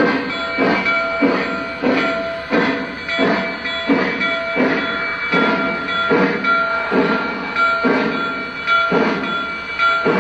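Lionel Vision Line 700E Hudson O-gauge model steam locomotive's onboard sound system giving out steady, rhythmic steam chuffs, about three every two seconds, as the engine runs. A faint steady tone sits under the chuffs.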